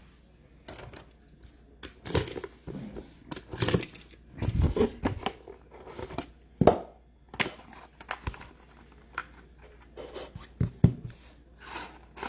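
Trading-card pack wrappers being torn open and crinkled, with cards being handled: a string of irregular short rips and rustles.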